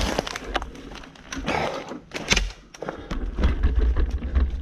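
A phone carried in a shorts pocket during a mountain bike ride: scattered knocks and rubbing against the microphone, then a steady low rumble from about three seconds in.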